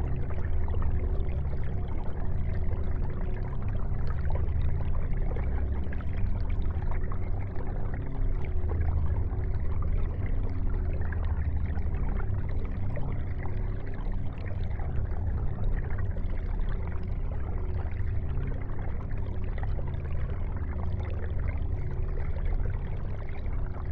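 Aquarium bubbling and trickling steadily as the tank's air and water circulation runs, over a low steady hum.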